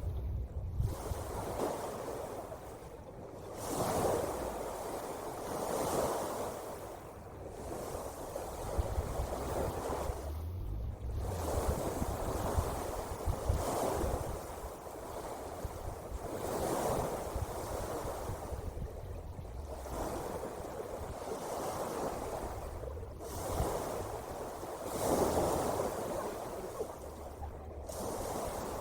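Ocean surf: waves washing in, each swell rising and falling away every two to three seconds.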